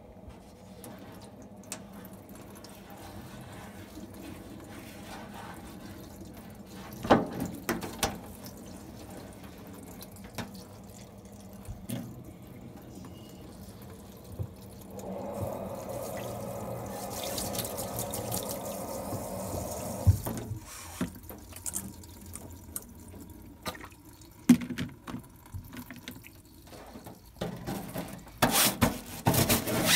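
Tap water running into a sink while an air-conditioner filter is washed, the flow louder for a few seconds past the middle, with occasional knocks and clatters of handling.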